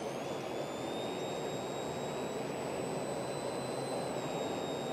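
Steady road and engine noise inside a moving car, picked up by the dashcam, with a thin high-pitched whine over it that shifts slightly in pitch twice.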